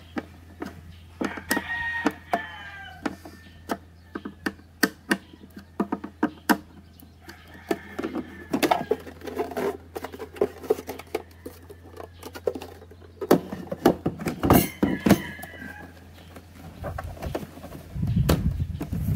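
Repeated light clicks and knocks of hard plastic armrest parts and a screwdriver being handled and set down on a wooden table, with a denser run of louder knocks a little past the middle. A few chicken calls sound in the background.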